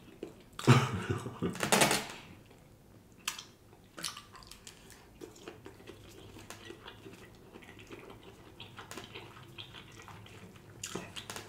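Metal fork clicking and scraping in a foam takeout container as food is picked up, with small eating noises. About a second in there is a brief voiced sound.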